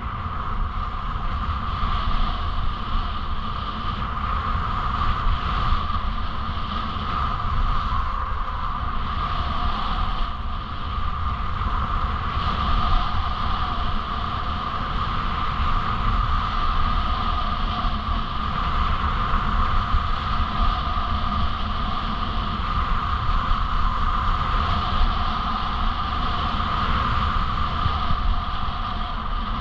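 Wind noise buffeting the camera microphone over the steady hiss of sliding downhill on packed, tracked snow.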